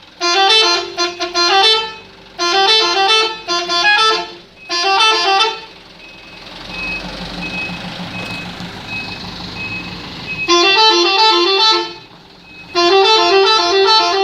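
Indonesian bus 'telolet' multi-tone air horn playing a jingling tune of quick stepping notes, in five bursts. In the middle there is a break of several seconds where only engine and road noise is heard.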